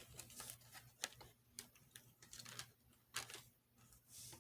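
Faint, irregular light clicks and taps of tarot cards being handled and laid out.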